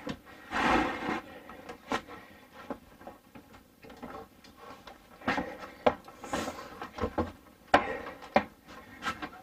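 Scattered knocks and clunks of a heavy wood-and-steel dinette table being shifted and set onto its stand, with a few sharp single knocks spread through, among them two near the end.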